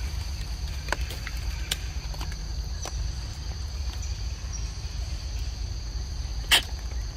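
Steady insect chorus of two unbroken high-pitched buzzing tones over a low rumble, with scattered light ticks and one sharp click about six and a half seconds in.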